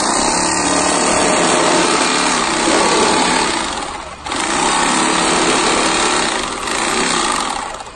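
Industrial sewing machine running at speed as fabric is fed through, stopping briefly about four seconds in and then running again.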